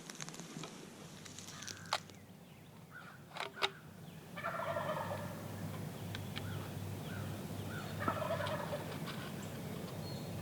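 Wild turkey gobbler gobbling, twice, a few seconds apart. A few sharp clicks come before the first gobble.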